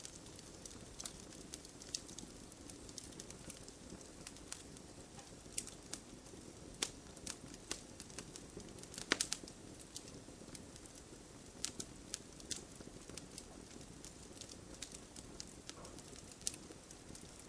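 Campfire crackling: irregular sharp pops and snaps over a low steady hiss, with a quick cluster of louder pops about nine seconds in.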